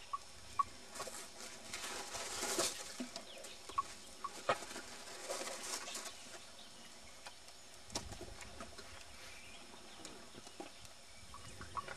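Faint outdoor ambience with a few short bird chirps, and soft rustling and sharp clicks as an Asian elephant's trunk works in a woven basket of rice.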